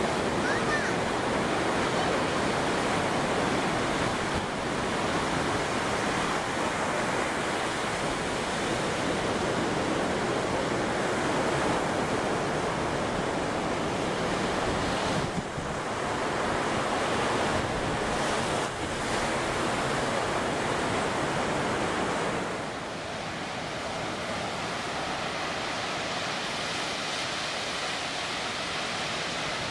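Pacific Ocean surf breaking on the beach, a steady rush of waves heard from inside a sea cave, with some wind on the microphone. It eases a little about two-thirds of the way through.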